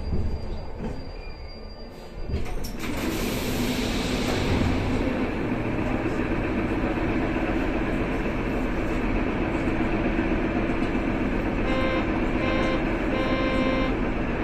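Warsaw Metro 81-572 subway car standing at a station: its doors slide open with a hiss about two seconds in, followed by the steady hum of the stationary train. Near the end come three beeps of the door-closing warning.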